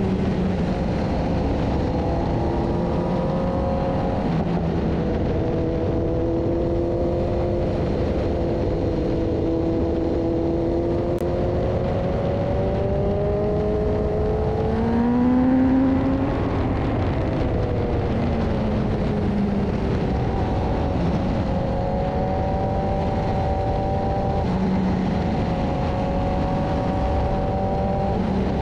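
BMW S1000RR inline-four engine running at speed through a series of bends, its pitch sliding up and down with the throttle and climbing to a louder peak about halfway through before dropping back. Heavy wind rush on the bike-mounted GoPro's microphone runs underneath.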